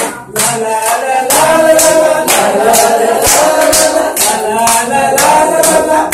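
A group singing a repetitive Malay-language song together in chorus, with hand claps keeping a steady beat about twice a second.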